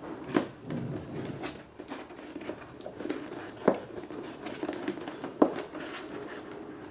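Thin plastic sheet rustling and crinkling as it is rolled into a cone by hand, with a few sharp crackles, the loudest near the start, about halfway and at about five and a half seconds.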